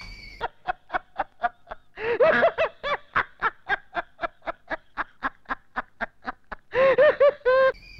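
A person laughing: a long run of quick, even laughing breaths, about five a second, then a few louder laughs near the end.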